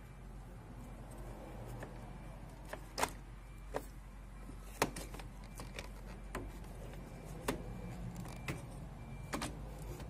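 Sharp, irregular clicks, roughly one a second, over a low steady hum.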